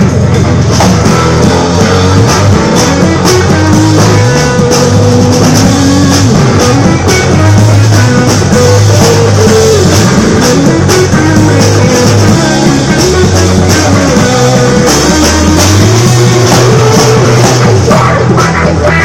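Loud rock music with guitar, a moving bass line and a drum kit keeping a steady beat.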